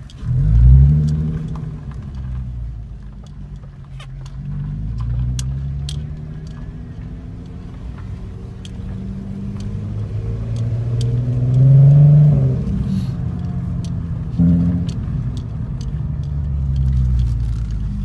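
Volkswagen Golf R32 Mk5's 3.2-litre VR6 engine, heard from inside the cabin. It revs up sharply about half a second in, then rises and falls in pitch several times as it pulls, with another strong rise peaking about twelve seconds in before dropping away.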